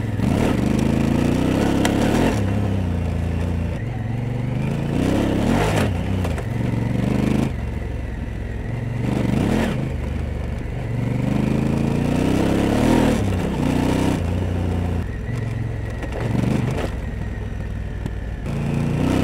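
Honda Africa Twin CRF1000's parallel-twin engine under way, its pitch rising and falling again and again as the rider opens and closes the throttle. Short noisy rushes break in every couple of seconds.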